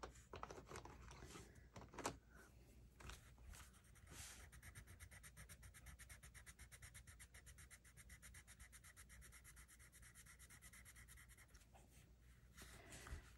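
A Mondo Llama colored pencil scribbled quickly back and forth on paper to fill in a swatch: a faint, even scratching of rapid strokes, after a few light knocks in the first seconds.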